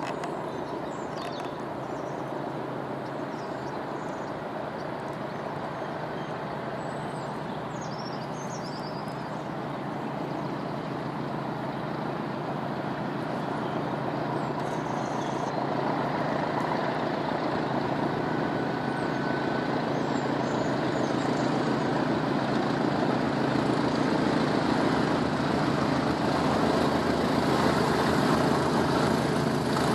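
A pair of English Electric Class 20 diesel locomotives working a freight train, their English Electric 8SVT engines running steadily and growing gradually louder as the train approaches.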